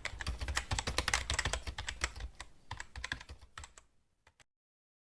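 Typing on a computer keyboard: a fast, uneven run of key clicks that thins out and stops about four seconds in.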